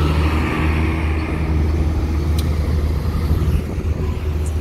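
A coach bus's engine running with a steady low rumble as the bus drives slowly past close by, coming off a ferry.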